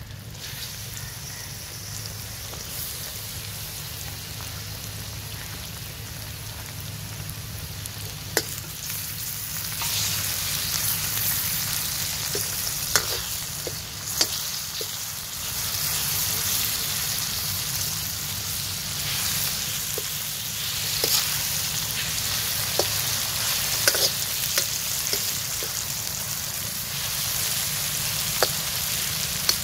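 Chopped tomatoes and onions sizzling in hot oil in a steel karahi over a wood fire, the hiss growing louder about ten seconds in. Short sharp clinks of a steel ladle against the pan come now and then as it is stirred.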